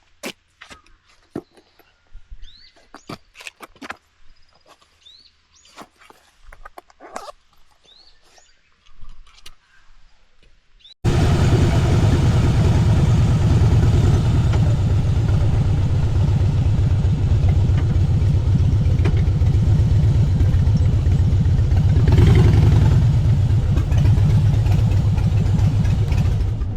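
Faint scattered clicks and a few short chirps. Then, about eleven seconds in, a Harley-Davidson motorcycle's engine comes in suddenly, running steadily and loud with a deep pulsing low end, until just before the end.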